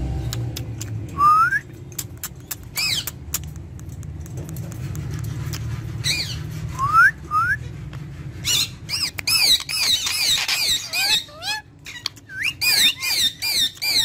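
Indian ringneck parrot giving a few short rising whistles, then from about eight seconds in a quick run of repeated wavy, shrill calls, with scattered light clicks.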